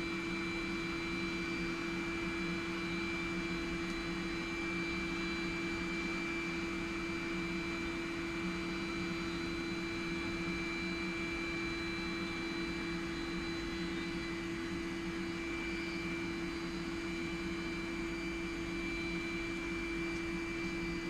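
Small forge running steadily: an even rushing noise with a constant hum.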